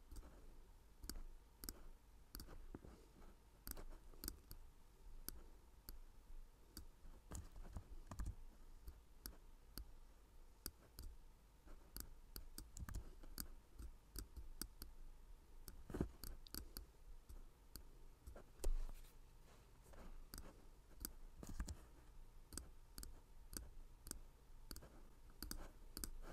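Faint, irregular clicking of a computer mouse, several clicks a second at times, with one louder knock about two-thirds of the way through.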